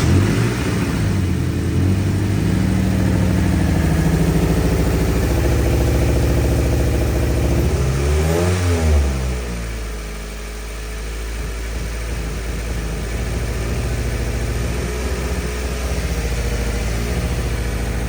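2013 Subaru Impreza's 2.0-litre flat-four engine running just after start-up at a raised speed. About eight seconds in, the speed drops and it settles to a lower idle. The running is uneven, from a cylinder misfire.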